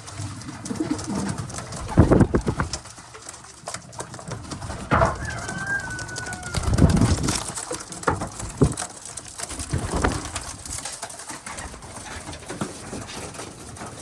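Racing pigeons cooing in a loft: several low coos among scattered light clicks.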